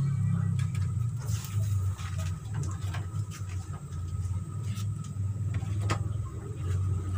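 Pot boiling on a stove burner, a steady low rumble, with scattered light clicks and knocks of utensils.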